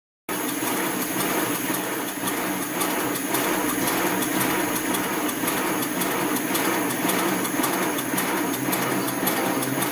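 Sweet Pea miniature steam locomotive running with its wheels off the track, driving wheels, coupling rods and valve gear turning, with a steady mechanical clatter and an even, quick rhythmic beat.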